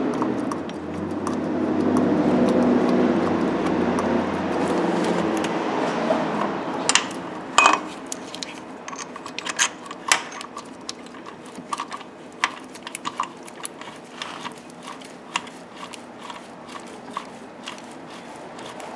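Small, irregular metal clicks and clinks, a few ringing briefly, as a bolt and a drive-belt tensioner are handled and fitted by hand on an engine. For the first six seconds or so a low rustling rumble is louder than the clicks.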